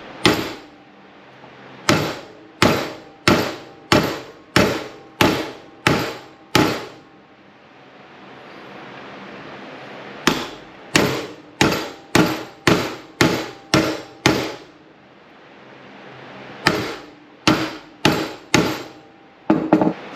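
A hammer strikes a steel socket used as a driver, seating a part on the throttle shaft of an RB26 individual throttle body. The strikes are sharp and ringing, about two a second, in three runs of several blows each with short pauses between.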